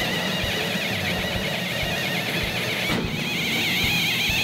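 Pneumatic drill with a 1 1/8-inch hole saw cutting through the top of a steel car frame rail, the saw squealing with a wavering pitch.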